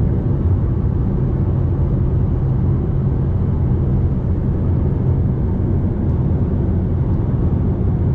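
Fiat Toro pickup cruising steadily on the road: its 2.0 turbodiesel running with tyre and wind noise, an even low drone that holds at the same level throughout.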